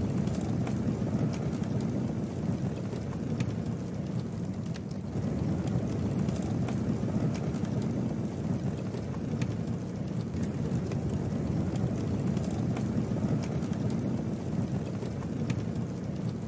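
Campfire burning, a steady low rush of flames with scattered sharp crackles and pops from the burning wood.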